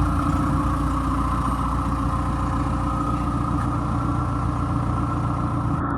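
John Deere 410E backhoe loader's 4.5-litre four-cylinder diesel running steadily at idle. It is smooth and even, a sign of a healthy engine, which the seller says sounds really good.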